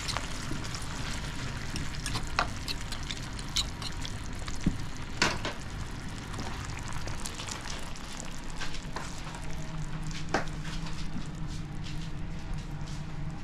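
Vegetable sauce sizzling and simmering in a metal pan on a gas stove, with a metal utensil now and then clinking and scraping against the pan. A low steady hum joins after about nine seconds.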